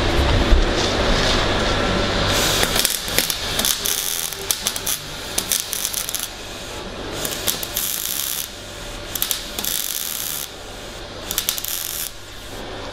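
MIG/MAG welding arc from a Fronius TPS 400i crackling in several short, broken bursts as tacks are struck on steel pipe, starting and stopping unevenly rather than running smoothly. The tacks are not taking because a piece of spatter is stuck in the torch's contact tip. A knock comes about half a second in, before the arc starts.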